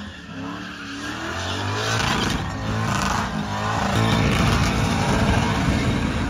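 Diesel pickup truck engine revving hard during a burnout, building in loudness over the first few seconds and then holding.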